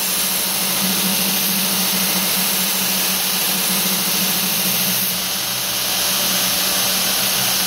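Belt grinder running with a knife blade held against the belt over its solid rubber 10-inch contact wheel: a steady hissing grind over a steady motor hum, easing briefly about five seconds in. This is the rough hollow grind being cut into the blade.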